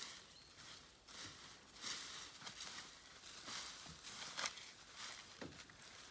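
Faint, irregular rustling and crackling of dry grass and leaf litter, with a few soft low knocks, as a dhole tugs and tears at a sambar carcass.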